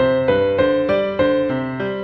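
Background piano music: a gentle melody of single struck notes, about three a second, each fading before the next.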